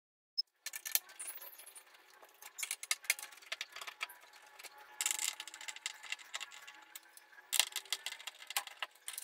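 Screwdriver backing screws out of a wooden kitchen cabinet door's metal pull and concealed hinge, making a run of small metallic clicks, scrapes and rattles.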